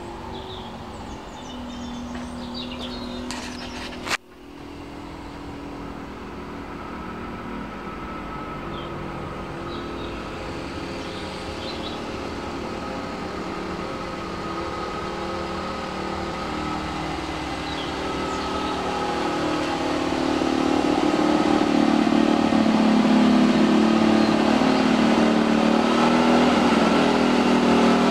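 Small model aircraft engine in a garden-railway locomotive running steadily under load while hauling a long goods train, growing louder over the last several seconds as it comes closer. A single sharp click about four seconds in.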